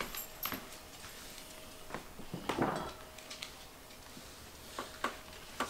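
Quiet footsteps and scattered light clicks and knocks on a hardwood floor, with a rustling scrape about two and a half seconds in and a faint steady hum underneath.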